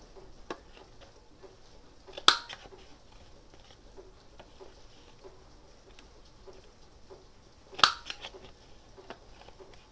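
Handheld corner rounder punch snapping through cardstock, two sharp clicks about five and a half seconds apart, each cutting one rounded corner. Light ticks of the card being handled and repositioned in the punch come in between.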